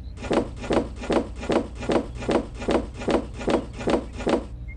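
Toy strawberries picked one by one from a small painted-wood toy trailer and dropped into another toy trailer: a quick, even run of light knocks, about three a second, that stops shortly before the end.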